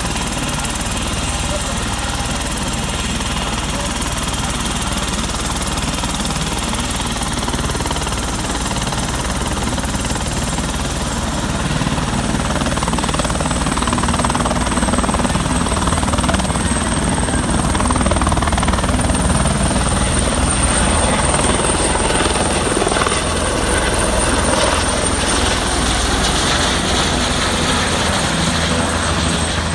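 Helicopter running steadily, its rotor giving a dense low chop under a constant engine noise. It grows a little louder a little under halfway through, and a thin high whine sets in past the middle.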